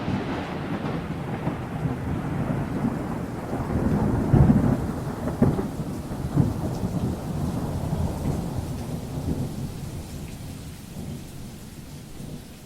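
Rolling thunder over falling rain. The rumble is loudest, with a few sharp cracks, between about four and six and a half seconds in, then slowly fades.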